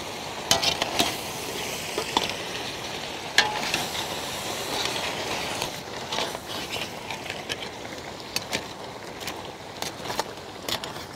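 Crabs in thick masala being stirred in a large metal kadai with a metal spatula and perforated ladle: scraping and scattered sharp clinks of metal on the pan over a steady sizzle.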